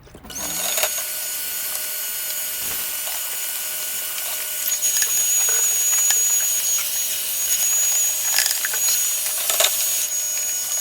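Vacuum cleaner switched on and running, a loud rush of air with a steady high whine from its motor, getting louder about halfway through, with a few knocks of the nozzle against the equipment.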